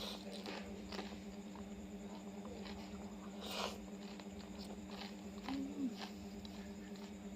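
Eating sounds: scattered small wet mouth clicks and a longer slurp about three and a half seconds in, with a brief low note near six seconds, over a steady low hum.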